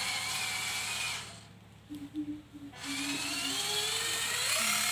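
Small electric drive motor of a homemade cardboard RC truck whining as it drives. The pitch rises as it speeds up, dies away for a moment about a second in, then comes back climbing again.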